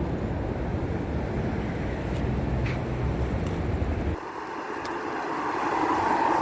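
A train passing: a steady low rumble that drops away suddenly about four seconds in, then a higher noise swelling toward the end.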